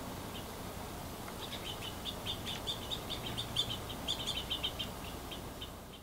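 Small songbirds chirping: a few scattered high chirps, then a quick run of many chirps from about a second and a half in until near the end. A low steady background rumble runs underneath.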